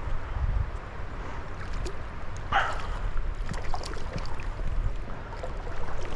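Steady rush of a river's flowing water with wind rumbling on the microphone, scattered small clicks, and one brief louder sound about two and a half seconds in.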